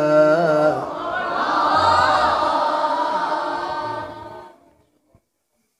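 A man's Quran recitation (tilawah) through a microphone ends a long, ornamented note. A crowd of listeners' voices then rises in response for about three seconds and fades out about four and a half seconds in, leaving near silence.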